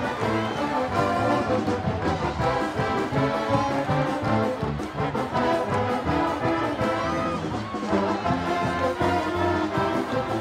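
Music led by brass instruments, playing a melody of changing notes.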